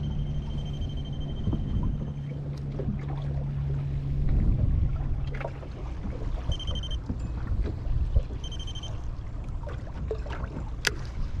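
Small fishing boat drifting at sea: water against the hull and wind, with a steady low hum that stops about halfway through. A long high beep sounds at the start, two short beeps follow later, and there is a sharp click near the end.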